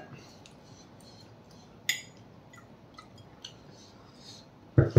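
Quiet table sounds of a meal: faint clinks of forks on ceramic plates, a sharp click about two seconds in, and a low thump near the end, the loudest sound.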